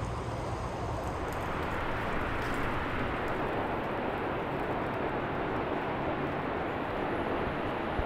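Steady rushing noise with no clear pitch or rhythm.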